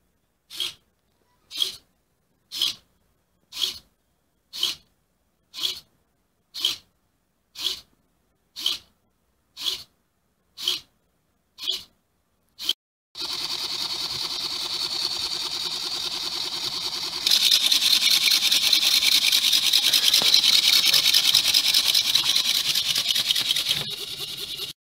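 Small hobby servo motors of a homemade Arduino insect robot whirring in short bursts about once a second, then running without a break for the last ten seconds or so, louder and with a fast rattle from about two-thirds in.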